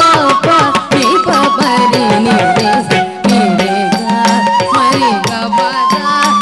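Carnatic classical music accompanying a Bharatanatyam dance: an ornamented melody that glides and steps between notes, over rapid, dense drum strokes.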